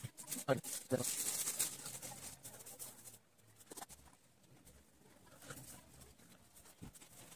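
Felt-tip pen strokes scratching on paper, with a few short, low bird calls in the background in the first second or so.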